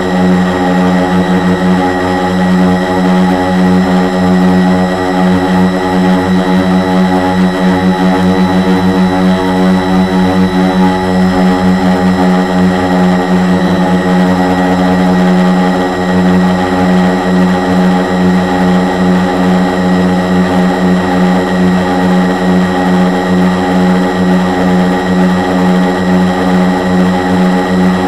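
Four Multistar 2212 920kv brushless motors spinning 10x4.5 props on a 450-size quadcopter in flight, heard through a camera mounted on the frame: a loud, steady buzzing hum that wavers slightly as the motor speeds adjust.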